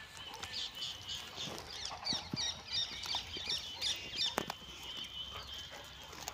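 Small birds chirping rapidly and continuously, thinning out near the end, with a single sharp click about four and a half seconds in.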